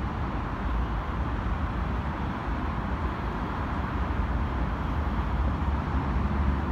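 Steady city traffic noise: a continuous low rumble and hiss with no single event standing out.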